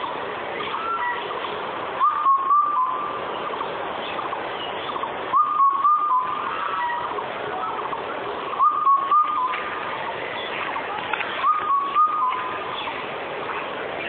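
Indian cuckoo repeating its four-note whistled call, four times about three seconds apart, over steady background noise.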